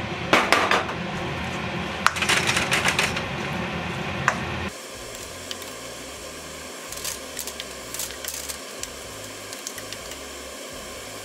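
Raw chicken pieces frying in a wok of curry spice paste, with a wooden spatula scraping and knocking against the wok as they are stirred in: a loud burst and a run of dense clicks in the first few seconds, then lighter scattered taps. A steady background hum cuts off about five seconds in.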